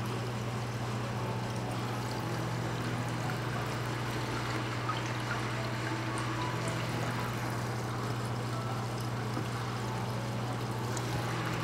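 Small aquarium filter running, its return water pouring and trickling steadily into the water of the bin, over a steady low hum.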